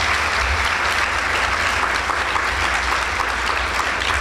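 Conference audience applauding steadily: many pairs of hands clapping at once.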